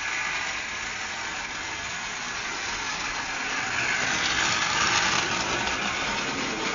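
Model train running along its track, a steady noise that grows louder about four seconds in and eases again towards the end.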